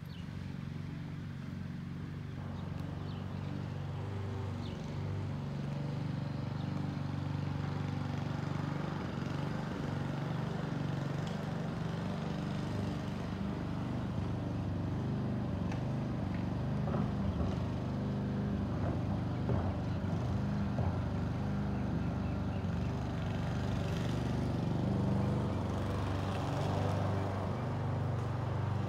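A vehicle engine idling steadily with a low drone, with a few light knocks in the second half.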